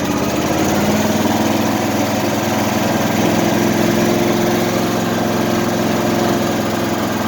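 Husqvarna small engine, just cold-started on a jump, speeding up as the throttle is opened in the first second, then running steadily at the higher speed.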